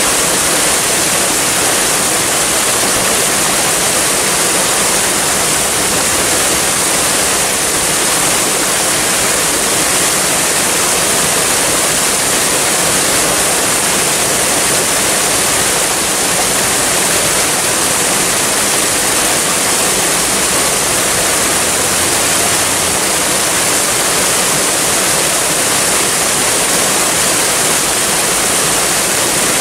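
Waterfall: water falling in a loud, unbroken rush that holds steady throughout.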